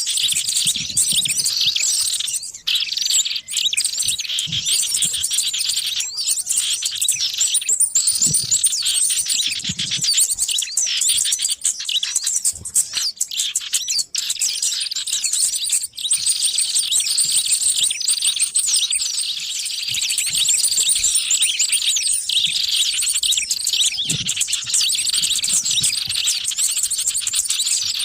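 A dense, noisy chorus of many small birds chirping and twittering at once, their rapid high calls overlapping without a break. This is a bird-lure recording of the kind played to draw wild small birds in.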